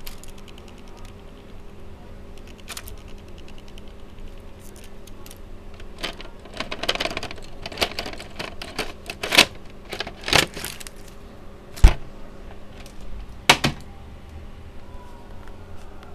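Plastic and metal clicking and clacking at an opened Toshiba M751 VCR's tape deck, over a faint steady hum. A stretch of rattling comes around the middle, then four sharp clacks; the loudest, about three-quarters through, is a dull thump.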